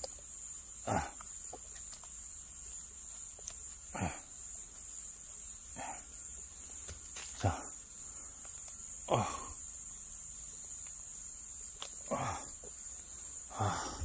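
Steady high-pitched chirring of crickets, with about seven short rough scraping noises, spaced one to three seconds apart, as a knife cuts a cluster of wild oyster mushrooms free from an oak trunk.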